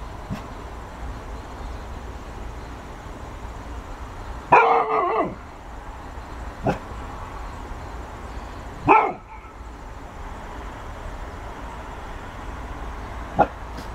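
Golden retriever barking at a ball, four single barks a few seconds apart; the first, about four and a half seconds in, is longer and drawn out, and the last, near the end, is short and sharp.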